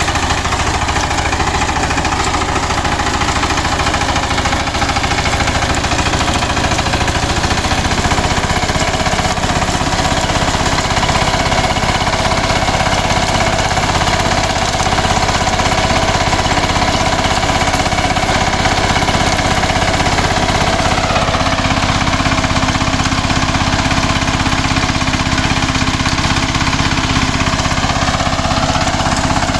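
Kirloskar Mega T 15 power tiller's single-cylinder diesel engine running loud and steady with a hard knocking beat; its note shifts about two-thirds of the way through and rises near the end.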